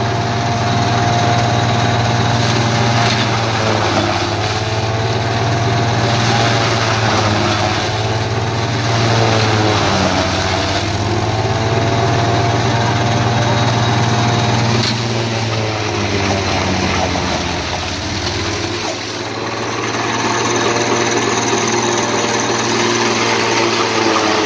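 Tractor-driven silage cutter chopping green corn stalks, with the Fiat 480 tractor's diesel engine running steadily. Its pitch sags and recovers several times as bundles of stalks are fed in, and a rushing, clattering noise comes from the cutter blowing out the chopped fodder.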